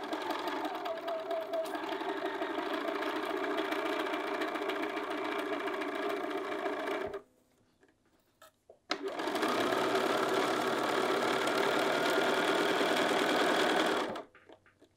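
Bernina sewing machine stitching a seam through two layers of fabric. It runs steadily for about seven seconds, stops for about two, then runs again for about five seconds before stopping near the end.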